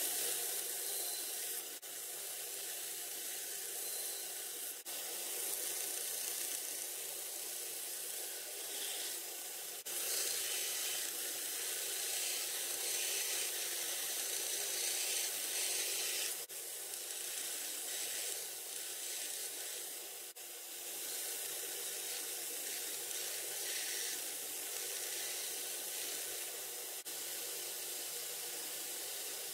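Homemade belt sander grinding steel: a steady, hissing grind of the abrasive belt against the metal edge over the machine's faint hum. The level jumps abruptly several times.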